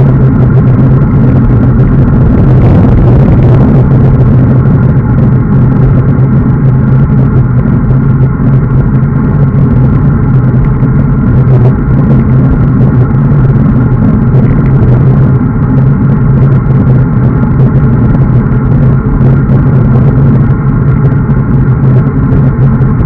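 Loud, steady wind rumble on the microphone of a camera mounted on a road bike riding at speed, mixed with the road noise of the bike's tyres on asphalt.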